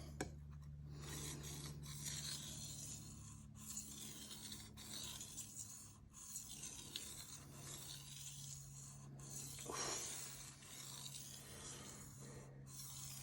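Knife edge being stroked back and forth on a Shapton Rockstar 1000 whetstone: a faint, scratchy scraping hiss with brief breaks where each stroke turns. A steady low hum runs underneath.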